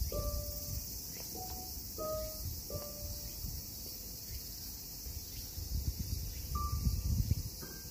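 Steady high-pitched insect chorus, with a few soft piano notes over it in the first three seconds and again near the end, and a low uneven rumble underneath.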